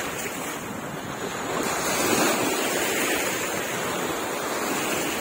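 Small sea waves lapping and washing over a pebble shore, a steady wash of water, with wind buffeting the microphone.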